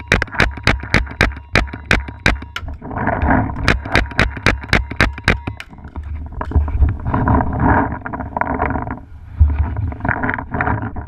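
Paintball markers firing in fast, even strings, about four or five sharp pops a second, stopping about five and a half seconds in. After that come heavy rustling and a few thumps of running and ducking behind a bunker.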